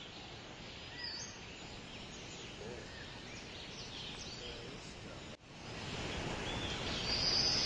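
Birds chirping here and there over a quiet outdoor background. About five seconds in the sound drops out for an instant and the background returns louder, with a high, steady trill near the end.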